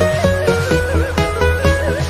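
Background music: a plucked string instrument playing an ornamented melody with bent, wavering notes over a steady low drone, in a traditional folk style.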